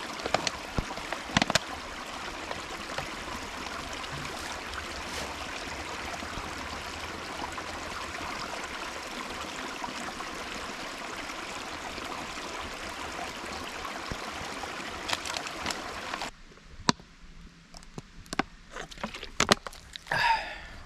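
Creek water flowing steadily; it cuts off suddenly about sixteen seconds in, leaving a quieter scene with scattered sharp clicks and taps.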